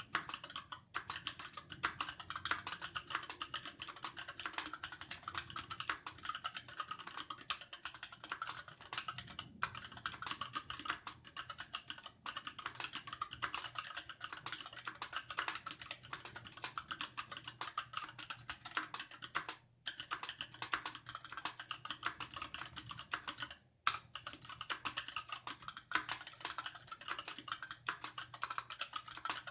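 Continuous typing on a Varmilo VA68M compact mechanical keyboard with an aluminum case, Gateron Red linear switches and dye-sublimated PBT keycaps: a dense, rapid stream of keystroke clacks broken by a few brief pauses.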